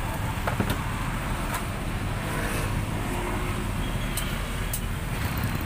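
Steady low rumble of roadside traffic, with a few light clicks scattered through it.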